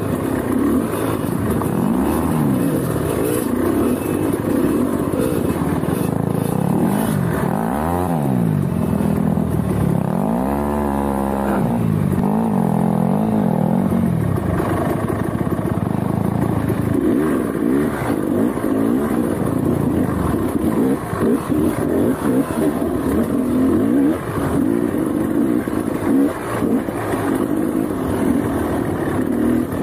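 Motorcycle engine running on a trail ride, its pitch rising and falling as the throttle is worked, with several quick rev-ups and drops about a third of the way in.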